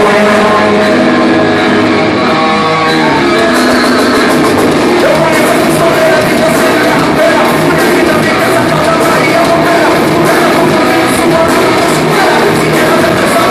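Live rock band playing loudly, with singing over the band.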